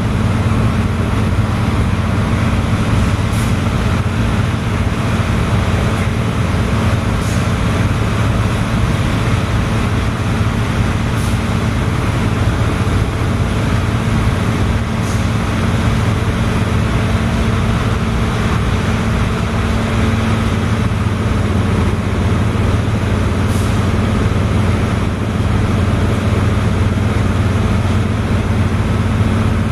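Heavy diesel engine running steadily at constant speed: a loud, even low drone with a steady hum above it and faint ticks every few seconds.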